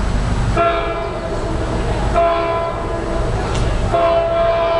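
An approaching NJ Transit diesel locomotive's air horn sounds three blasts of a chord of several tones, starting about half a second, two seconds and four seconds in. The last blast is still held at the end. A low rumble runs underneath.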